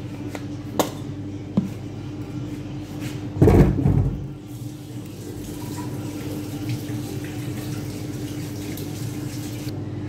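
Kitchen worktop handling noises: a few light clicks and a heavy bump about three and a half seconds in, over a steady low hum.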